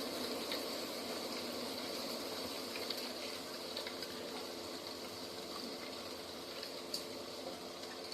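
Steady rushing nature ambience, an even hiss without pauses, with a few faint ticks and one sharper tick near the end.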